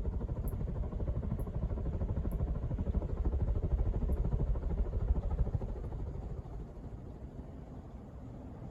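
1981 Casablanca Victorian ceiling fan running at full speed: a low, uneven rumble of moving air that eases off in the last few seconds.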